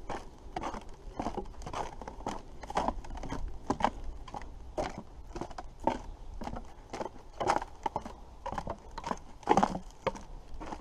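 Footsteps of a person walking at a steady pace, about two steps a second.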